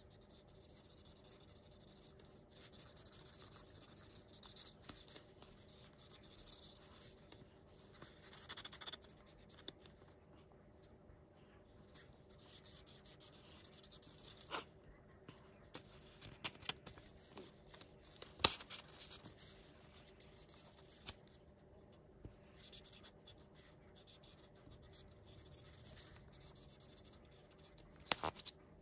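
A marker nib rubbing on paper as a picture is coloured in, faint, in short strokes with brief pauses. Several sharp taps stand out, a couple about halfway through and one near the end.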